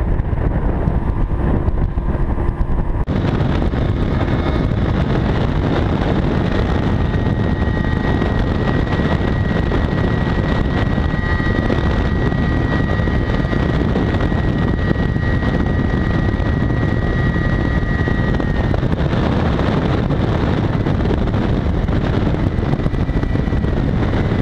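Bay boat running under way: the outboard motor's steady drone mixed with wind buffeting the microphone. About three seconds in the sound turns brighter and hissier. A thin steady whine rides over it for about twelve seconds in the middle.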